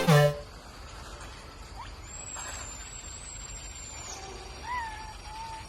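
Music cuts off just after the start. Then come faint animal calls: a thin, high, whistle-like tone held for about two seconds, and a few short calls that waver in pitch near the end.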